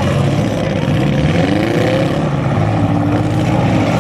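Engines of compact demolition derby cars revving, several at once, their pitch rising and falling over a loud, steady din.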